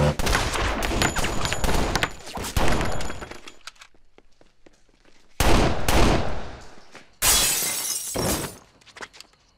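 Film gunfire: a rapid rattle of shots for the first few seconds, then two loud crashes, the second a window breaking with glass shattering.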